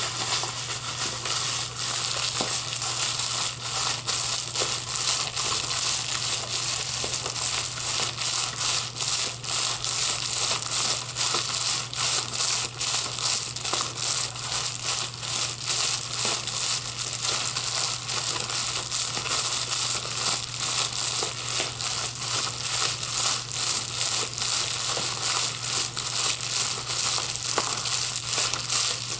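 Plastic bubble wrap being crinkled and squeezed by hand, a dense run of crackles and small pops that goes on without a break. A steady low hum sits underneath.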